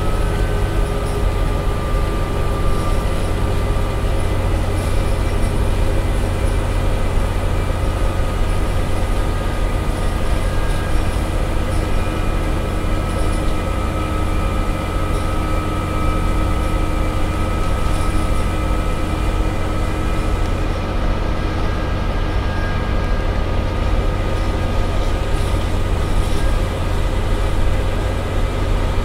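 Scania Omnicity CN94UB single-deck bus heard from inside the saloon while driving along: a steady, heavy diesel drone with road noise and a thin whine that drifts slightly in pitch.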